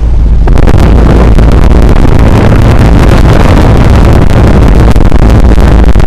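Discharge air from the top fan of a running Aire-Flo 5-ton straight-cool central air conditioner condenser blowing across the microphone. It is a loud, low wind rush that builds over the first half second, then holds steady.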